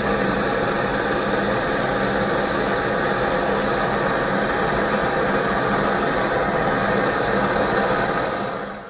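Handheld gas blowtorch burning with a steady rushing hiss as it flame-dries a freshly thrown clay bowl on the potter's wheel; the torch shuts off near the end.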